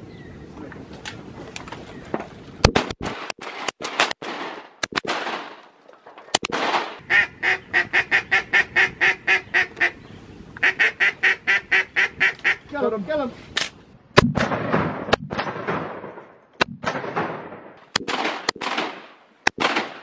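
Ducks quacking in two quick, evenly spaced runs of about six quacks a second, each run lasting a couple of seconds, followed by a short falling call. Several sharp, loud cracks come before and after the runs.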